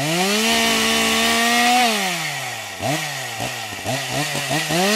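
Small electric chainsaw cutting through a Chinese elm trunk. The motor winds up to speed and holds for about two seconds, then slows. It is blipped several times in short bursts and revs up again near the end.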